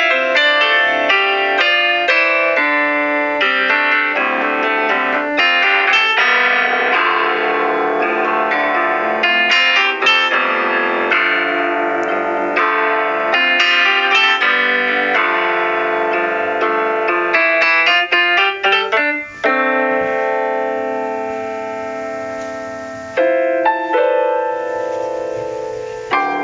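Background piano music: quick runs of notes, then a chord held and fading for a few seconds about three-quarters of the way through before the playing starts again.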